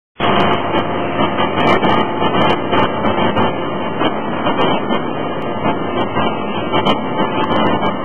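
Loud, steady din of heavy forging-shop machinery around a 16-ton hydraulic forging hammer, with irregular light knocks and no distinct hammer blows.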